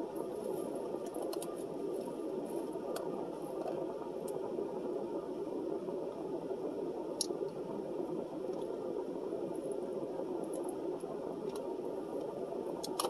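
Steady rushing of a car's air-conditioning fan, with scattered soft clicks and crinkles from eating: chewing, a foil-lined foam takeout tray being handled, and a sip from a plastic water bottle about six seconds in.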